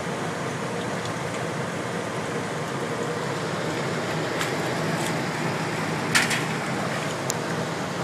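Steady hiss and hum of a 1999 Rheem 4-ton heat pump's outdoor unit running through its defrost cycle, melting the ice off its coil. A few light clicks come in the second half, the sharpest about six seconds in.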